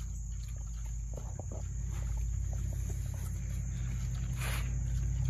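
Pigs eating grain from feed pans: scattered crunching and small clicks of chewing, with one short breathy snuffle about four and a half seconds in. A steady low hum and a high insect chirr run underneath.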